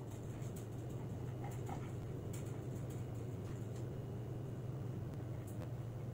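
Quiet indoor room tone: a steady low hum with a few faint, scattered clicks.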